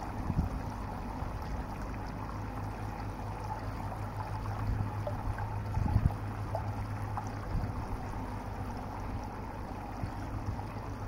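Steady rushing of shallow running water with a low rumble underneath, and a few soft thumps about a second in and around six seconds in.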